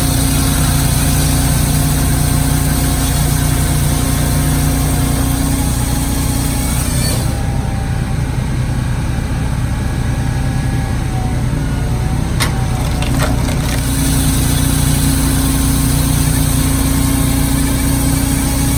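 Firewood processor's engine running steadily under load with its hydraulics working. A higher whine drops out for several seconds in the middle, and two sharp clicks come shortly before it returns.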